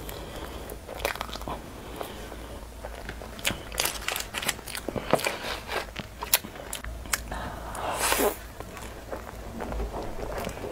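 Close-miked eating of soft layered crepe cake with cream: wet mouth clicks and smacks as spoonfuls are taken and chewed, scattered irregularly, with a longer rustling noise about eight seconds in.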